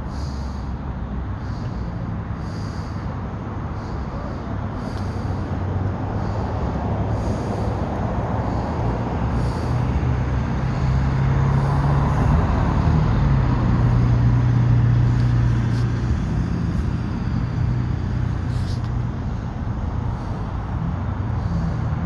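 Steady low rumble of motor traffic, with a vehicle engine's drone that swells louder through the middle and then eases off.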